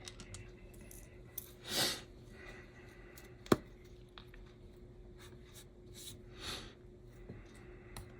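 Small clicks and taps of tiny HO-scale slot car parts and tools being handled on a workbench, with one sharp click about three and a half seconds in. Two short breathy swishes come about two and six and a half seconds in.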